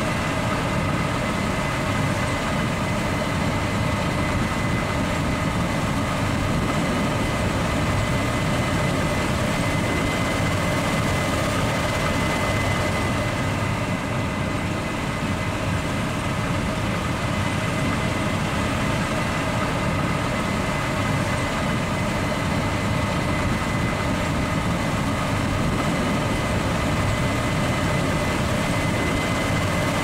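Case IH 9250 combine harvester running steadily as it harvests rice: a heavy diesel engine rumble with a steady high whine over it.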